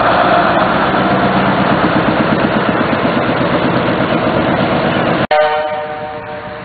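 TACL rail tractor's engine running loudly as it travels along the line. About five seconds in the sound cuts out abruptly, and a quieter, clearly pitched note follows and fades away.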